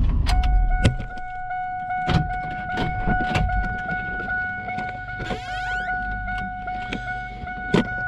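Inside a stopped SUV, the engine's low rumble dies away about a second in. A steady high tone comes on and holds, with scattered clicks and knocks of things being handled in the cab and a brief sweeping sound about five seconds in.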